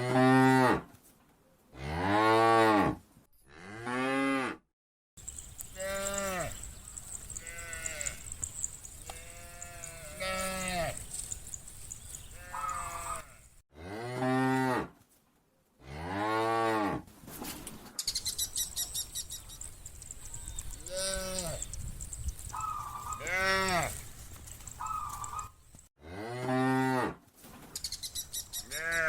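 A herd of cows mooing again and again, each moo a long call that rises and then falls in pitch. Some are loud and close, others fainter.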